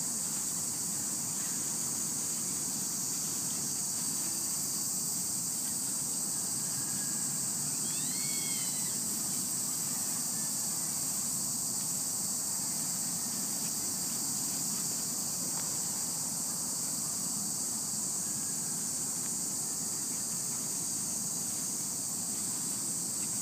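Steady, high-pitched chorus of insects chirring without a break, over a low rustling hiss, with one short rising-and-falling call about eight seconds in.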